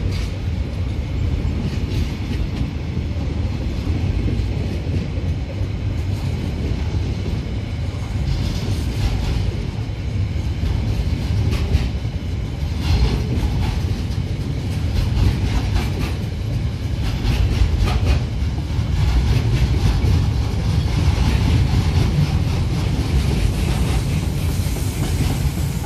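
Container freight train wagons rolling steadily past: a continuous low rumble of steel wheels on rail, with rapid irregular clicks and clatter from the wheelsets and couplings.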